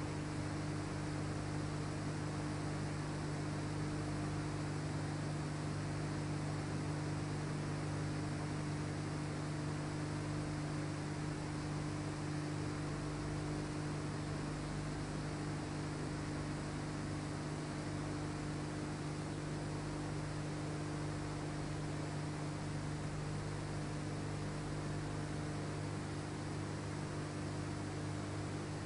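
Steady electrical hum over a constant hiss. No work sounds such as tool strikes or wood cutting can be heard.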